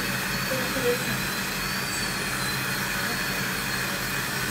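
High-speed dental drill running with a steady high-pitched whine that wavers slightly in pitch, over a steady hiss.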